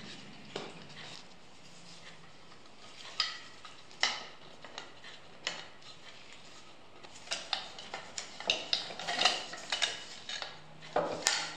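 Wooden off-cut pieces knocking and clacking against each other and their dowels as they are fitted together by hand: a few separate knocks at first, then a quick run of clacks in the second half.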